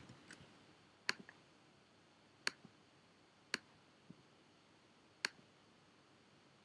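Sparse single sharp clicks from working a computer, about five of them spaced a second or so apart and irregular, over a faint quiet background.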